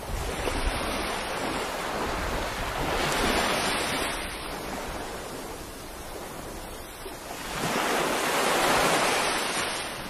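Small surf washing up a sandy beach, with the wash swelling twice, about three seconds in and again near the end.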